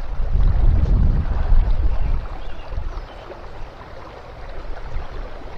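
Shallow, fast-flowing river rippling steadily, with wind buffeting the microphone as a heavy low rumble for about the first two seconds.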